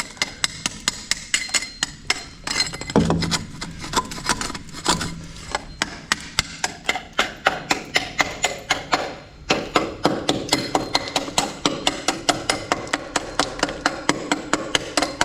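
A hand tool chipping and scraping at old, crumbling wall compound on a rusted window sill, a quick run of sharp taps, about three a second, with rough scraping between them.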